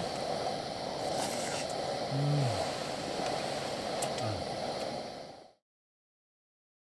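Steady rushing noise of a fan heater running inside a tent, with two short low grunts from a man about two and four seconds in; the sound cuts off suddenly a little past five seconds in.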